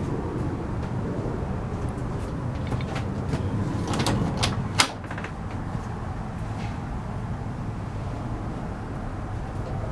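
A few knocks and then one sharp click about five seconds in, over a steady low hum.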